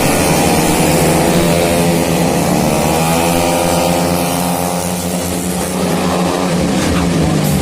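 Racing engines of tuned automatic scooters running at high revs, a steady loud drone whose pitch drifts slowly up and down.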